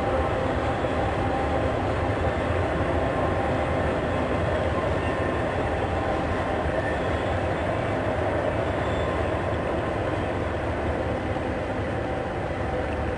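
A train running on the rails: a steady rolling noise of wheels on track, easing off slightly near the end.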